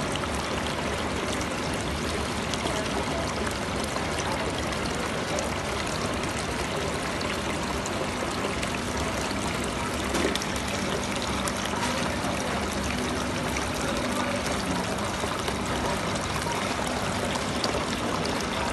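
Decorative artificial-rock fountain: water pours steadily from its spout and splashes into the basin below, with a faint low hum underneath.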